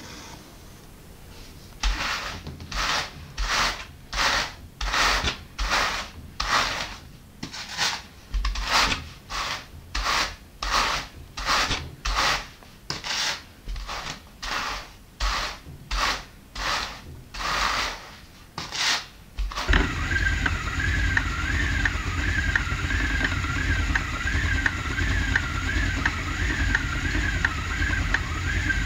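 About two seconds in, hand carders begin raking wool: the wire-toothed paddles scrape across each other in about twenty scratchy strokes, roughly one a second. After that a wooden spinning wheel takes over, a steady whir with a faint repeating warbling squeak as wool is spun into yarn.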